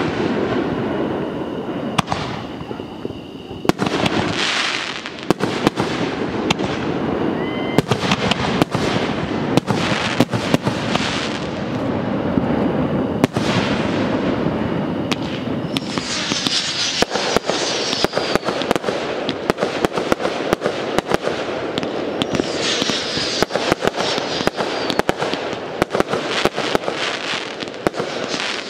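Aerial fireworks going off in quick succession, a steady run of bangs and pops. There are stretches of dense crackling a little past halfway and again later on.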